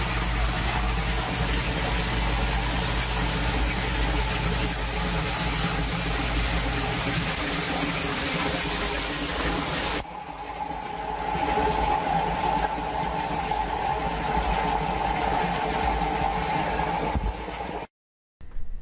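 Muddy storm water gushing out of a green PVC drain pipe and splashing into a plastic drain basin: a steady rushing noise with a low rumble under it. About ten seconds in, the sound turns thinner and higher as the view moves closer to the pour.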